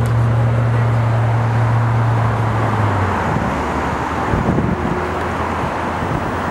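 Road traffic passing on a multi-lane street, with a steady low hum that stops about three seconds in.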